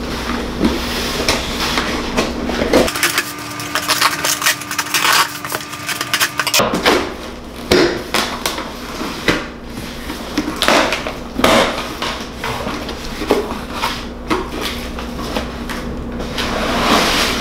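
Cardboard shipping box being opened by hand: packing tape torn and cardboard flaps pulled open and handled, a busy run of crackles, rustles and taps.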